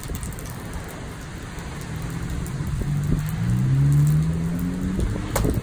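Rain falling on wet pavement as a steady hiss. From about two seconds in, a low vehicle engine hum swells and rises gently in pitch, then fades near the end.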